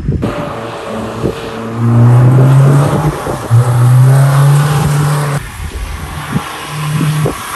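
Cars driving past on a city road, one with a loud, steady engine drone that breaks off briefly about three seconds in.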